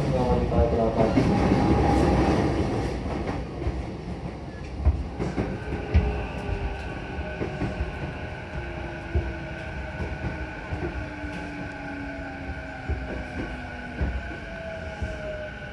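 Interior running sound of an E233-7000 series electric train slowing into a station. The traction motor and inverter whine slides steadily down in pitch, and the wheels click over rail joints. About five seconds in, a steady high tone joins, and the overall sound grows quieter as the train slows.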